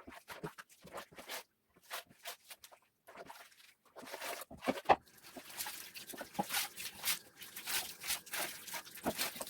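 Kitchen cabinet cleaning and tidying: light clicks and knocks of items being handled and set down, then from about four seconds in a quick run of rustling, scraping strokes.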